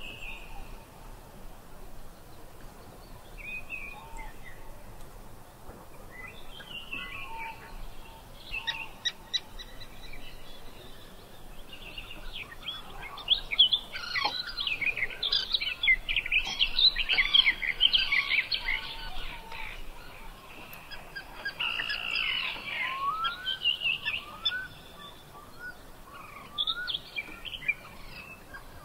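Several birds chirping and singing, many short calls overlapping. The calls are sparse at first, grow busiest and loudest about halfway through, and are followed by a run of quick rising whistles.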